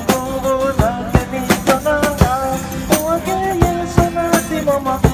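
One-man band playing: acoustic guitar and harmonica over a back-mounted bass drum and cymbal struck in a steady beat, about two to three hits a second.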